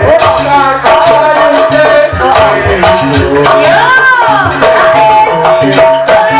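Live jaranan accompaniment music: a gamelan-style ensemble of drums and gongs with a dense, steady metallic jingle, under a melody line that holds one note and swoops up and back down about four seconds in.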